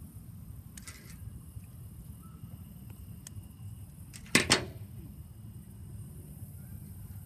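Metal fishing pliers dropped onto plastic deck boards, giving two sharp knocks close together about four seconds in, over a steady low rumble. There are a few faint clicks of the pliers working a hook about a second in.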